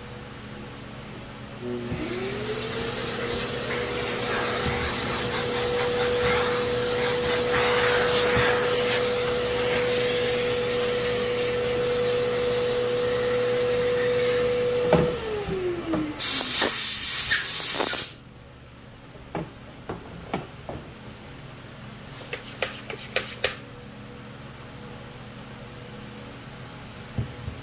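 A small electric motor spins up, runs steadily for about 13 seconds and winds down. Then comes a loud two-second hiss of an aerosol can spraying guide coat onto the sanded primer, followed by a few light clicks.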